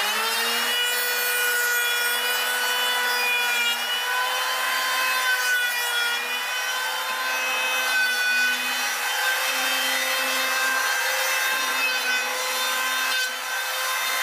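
An electric power tool running steadily while it works wood, its motor tone holding even as the higher whine shifts under the load of the cut.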